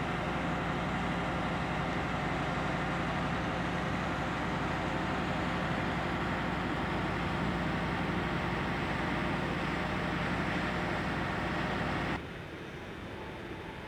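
Diesel engine of a railway vehicle idling steadily with a low hum. The sound cuts off abruptly about twelve seconds in, leaving a quieter hiss.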